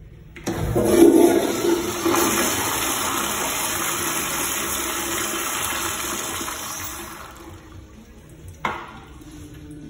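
Commercial flushometer-valve toilet (an American Standard Madera bowl) flushing. The valve opens suddenly with a loud rush of water, loudest in the first second or so, and runs steadily for about six seconds before fading out as the valve shuts off. There is a single sharp knock near the end.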